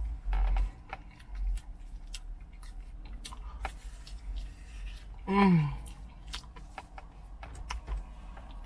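Soft mouth clicks and small handling clicks of someone eating a cupcake, with low thumps against the microphone. About halfway there is a brief hum that falls in pitch.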